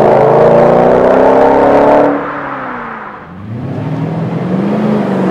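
Mercedes-Benz R230 SL500's V8 through a loud MEC Design stainless steel exhaust, accelerating hard away with the pitch climbing. About two seconds in the sound drops abruptly, then the engine grows louder and rises in pitch again as the car comes closer.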